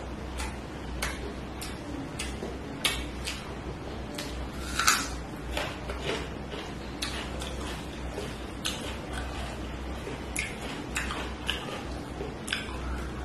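Close-miked eating sounds: chewing and wet lip smacks, with fingers mixing rice and curry on a steel plate. Irregular clicks come about twice a second, the loudest about five seconds in, over a low steady hum.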